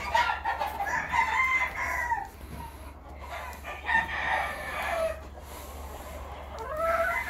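Roosters crowing: a long crow of about two seconds at the start, a shorter one about four seconds in, and another beginning near the end.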